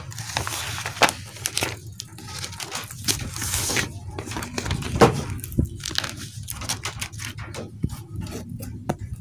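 Paper sketch being peeled and torn off an engraved acrylic sheet: irregular rustling, crinkling and tearing, with scattered clicks and taps as the sheet is handled.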